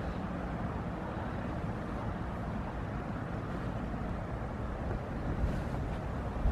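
Steady low outdoor rumble, mostly wind on the microphone.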